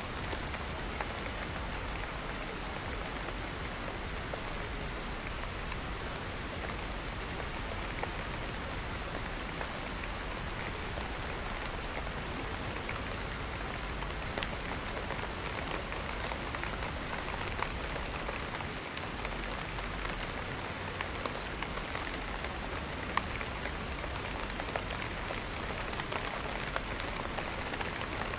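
Steady rain falling, with scattered faint drop ticks.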